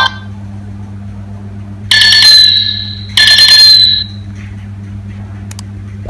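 Nokia 3220 mobile phone playing a ringtone through its loudspeaker: two loud electronic chirps, each about a second long with a slight downward slide in pitch, about two and three seconds in. A steady low hum runs underneath.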